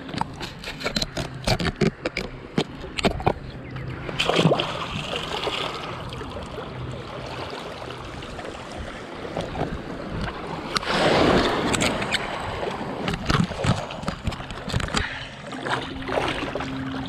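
Shallow water splashing and sloshing around wading legs and fins, with rushing bursts about four seconds in and again around eleven seconds as the camera goes in and out of the surface. Sharp clicks and knocks come thickly at first and again later, over a low steady hum.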